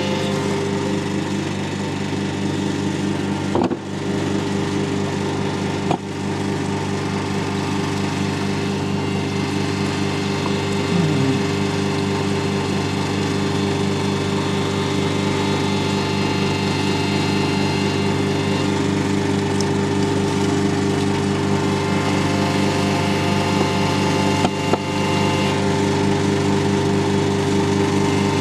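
Steady, even drone of the hydraulic machinery that drives a remotely operated crude-oil-sludge cleaning robot, with a couple of brief knocks in the first few seconds.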